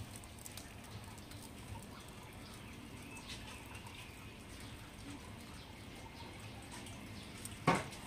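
Faint scraping of a wooden spreader working egg across a jianbing crepe on a round hot griddle, with one sharp knock near the end.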